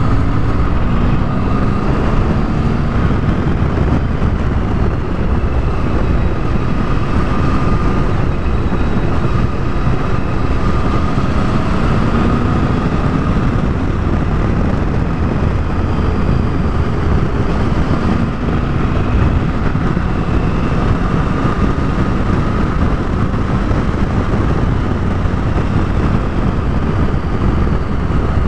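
Triumph Tiger 1050's three-cylinder engine running at road speed under heavy, steady wind rush over the microphone, its note rising now and then as the throttle opens.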